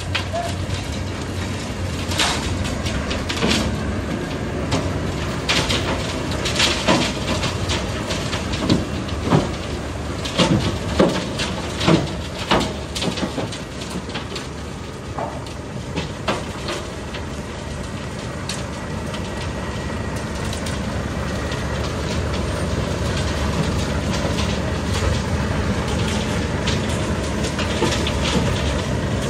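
Heavy diesel tipper truck engine running steadily, with a string of irregular clanks and knocks over the first half; the engine sound grows a little louder near the end.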